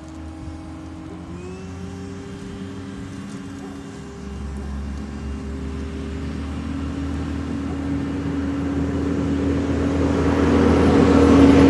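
Bee vacuum motor running with a steady hum. Its pitch steps up about a second in, and a second tone grows steadily louder toward the end.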